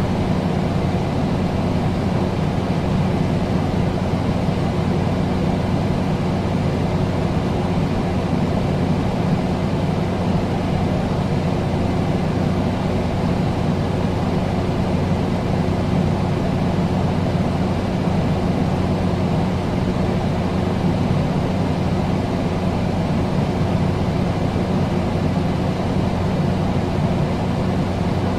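Electric fan running steadily: an even rush of air with a low, steady hum under it.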